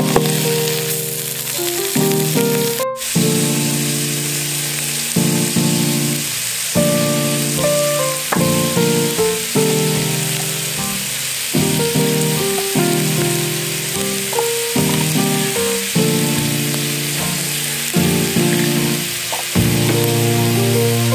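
Chunks of raw meat sizzling as they fry in hot oil in a metal pot, a steady hiss, with instrumental background music playing over it.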